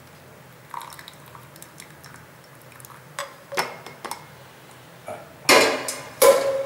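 Light clinks of an enamel kettle against a plastic tea strainer over a glass, then the enamel kettle set back down on a gas stove's metal pan support with a clatter and a sharp clank near the end.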